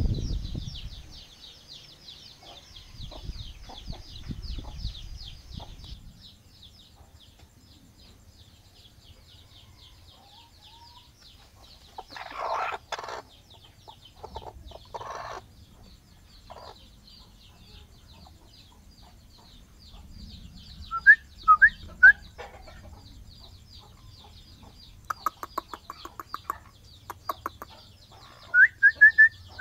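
Broody hen sitting over her chicks: the chicks give short, high peeps in a few quick runs, around the middle and again near the end, among harsh low calls from the hen. A steady high trilling goes on underneath.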